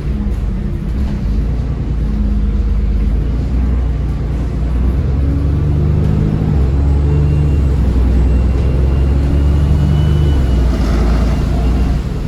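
A bus's diesel engine heard from inside the bus, running under load as it drives, its pitch stepping up and down. From about halfway through, a faint high turbocharger whine rises slightly in pitch.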